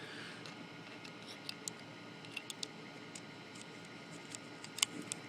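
Faint, scattered light clicks and taps of small plastic parts as an opened PlayStation 3 controller is handled, with the loudest click near the end.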